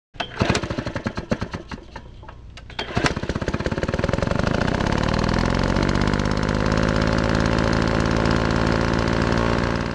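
An engine sputtering with uneven sharp pops, then running steadily and fast as a dense rapid pulsing, cutting off abruptly at the end.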